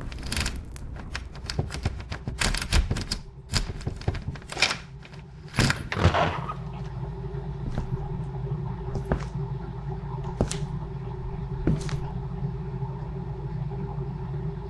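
A quick, irregular run of sharp clicks and taps that thins out after about six seconds to a single click every second or so, over a steady low hum.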